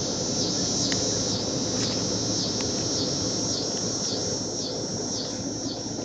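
Cicada calling: a loud, unbroken buzz that pulses in a rhythm, quickening from about two pulses a second to about three.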